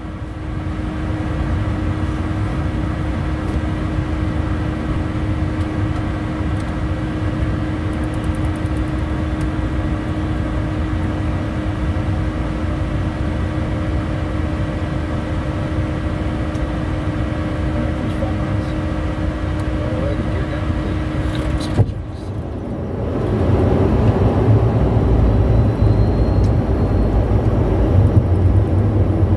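Cockpit noise of a Bombardier Challenger 350 jet on approach: a steady rush of air and jet drone with a held tone. About 22 seconds in, the tone cuts off abruptly and a louder low rumble builds.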